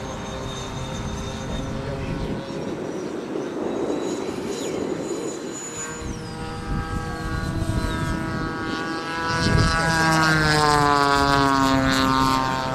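Twin 80 mm electric ducted fans of a Freewing A-10 foam RC jet whining in flight. One tone slides down in pitch about six seconds in. After a short thump at about nine and a half seconds, the whine gets louder, its pitch falling as the jet passes.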